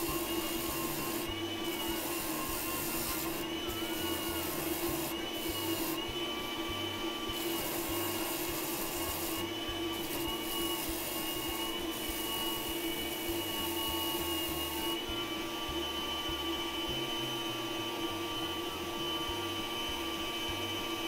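Food-processor motor running steadily with a whine, spinning a plywood disc while a steel rasp is held against its edge and scrapes it true. The rasping comes and goes, stops about 15 seconds in, and the motor runs on alone.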